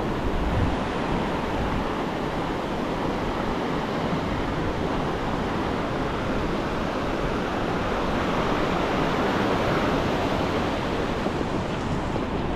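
Ocean surf washing up a sandy beach: a steady rush of breaking foam and water.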